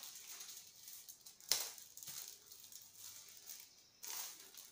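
Paper envelope being handled and opened, with faint rustling and crinkling of the paper, a sharp crackle about one and a half seconds in, and a denser rustle near the end.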